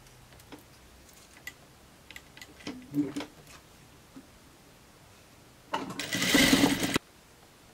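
Industrial sewing machine stitching a blouse hem in one short burst of about a second near the end, stopping abruptly. Before it come a few soft clicks and rustles as the fabric is positioned under the presser foot.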